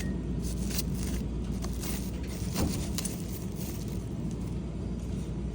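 Packaging being handled by hand during an unboxing: a quick run of small clicks and rustles through the first two-thirds, over a steady low hum.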